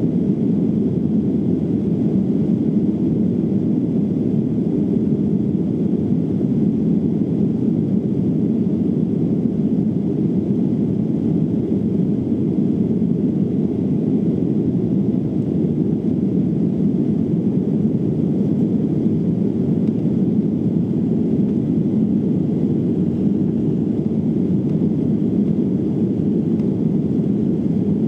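Steady low rumble of jet airliner cabin noise in flight: engine and airflow noise heard from inside the passenger cabin, unchanging throughout.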